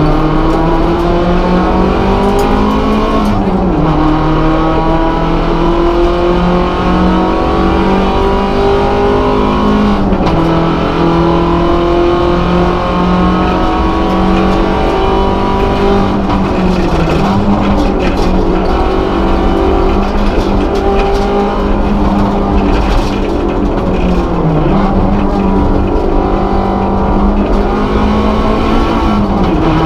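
MG ZR 170's 1.8-litre four-cylinder engine under hard acceleration, heard from inside the cabin of the race car. The engine note climbs through each gear and drops sharply at each gear change, about five times.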